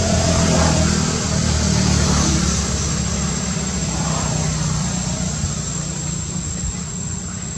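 A motor vehicle's engine running close by and slowly fading away, over a steady high-pitched whine.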